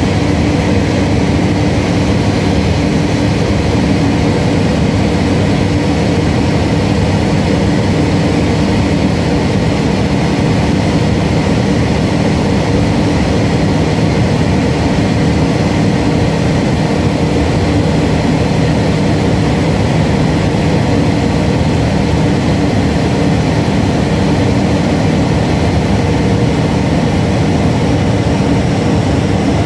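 Evektor EuroStar light aircraft's piston engine and propeller running steadily in level flight, heard from inside the cockpit with a constant rush of airflow over it.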